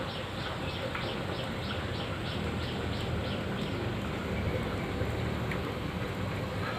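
Water heating on a stove, giving a steady hiss. For the first few seconds a short high chirp repeats about four times a second, then fades.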